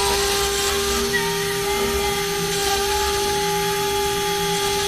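CNC router spindle running steadily with a constant high whine as its engraving bit cuts a line design into a sheet, over a hiss of cutting noise. Short lower tones come and go underneath.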